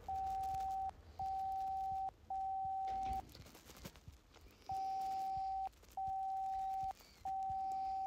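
Morse code practice app's simulated telegraph key sounding its steady beep tone. It plays six long dashes of just under a second each, in two groups of three, with a pause of about a second and a half between the groups.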